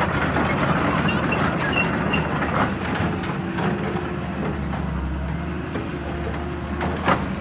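E200B excavator's diesel engine running steadily under work, with scattered knocks and a sharp metallic clank near the end.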